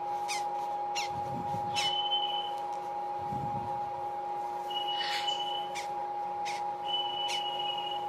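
Newly hatched African grey parrot chick peeping: several short, high, falling chirps and three longer thin held peeps about 2, 5 and 7 seconds in, over a steady electrical hum, with soft rubbing of tissue as it is handled.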